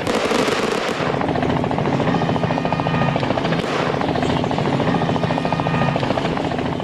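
Steady engine noise with a fast, even chopping beat over a constant low drone.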